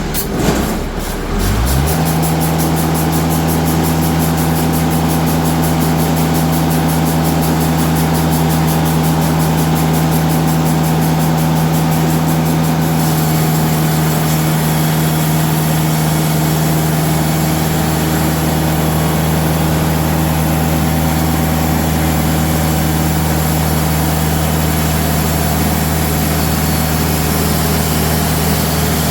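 An engine revs up over the first two seconds, then runs at a constant speed under steady throttle.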